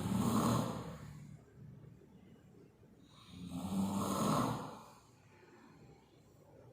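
A person snoring: one snore tails off about a second in, and another comes about three and a half seconds in, with quiet breathing between.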